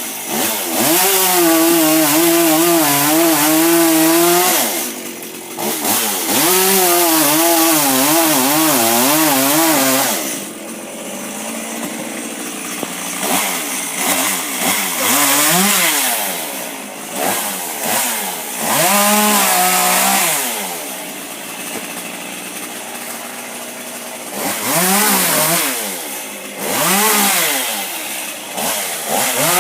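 Gas chainsaw cutting wood: long stretches at high revs with the pitch wavering under load, then quieter idling between cuts, broken by several short blips of the throttle in the second half.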